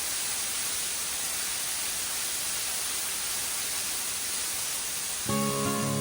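Steady, even hissing rush of noise, strongest in the upper range. Strummed acoustic guitar music comes in about five seconds in.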